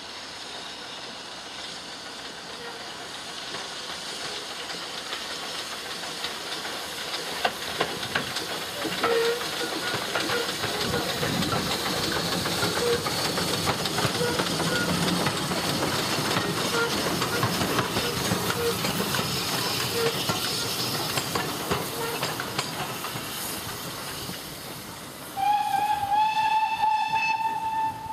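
Victorian steam tank locomotive working slowly past with a steady hiss of steam and a faint regular beat about once a second. Near the end the steam whistle is blown in one long blast, its pitch rising slightly, louder than anything else.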